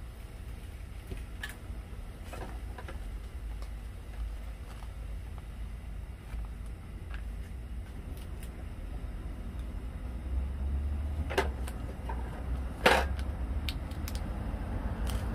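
Steady low rumble, with scattered light clicks and two sharp clacks about eleven and thirteen seconds in, the second the loudest, as packets and utensils are handled beside a pan of stew on a portable gas stove.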